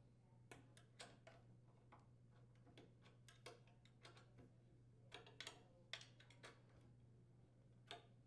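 Faint, irregular metal clicks and ticks from a wrench turning a refrigerator's threaded brake foot (leveling leg) down toward the floor, over a low steady hum.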